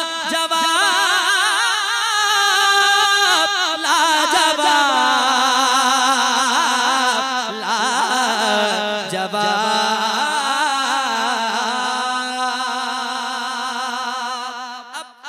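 Male naat reciter singing one long, ornamented phrase through a microphone, his voice sliding and wavering in pitch on held notes. The phrase fades out just before the end.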